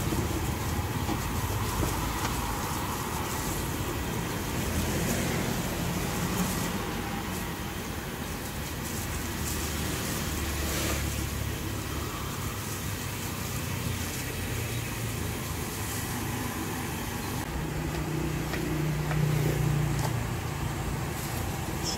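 Low, steady engine rumble of road traffic, with one engine humming a little louder near the end.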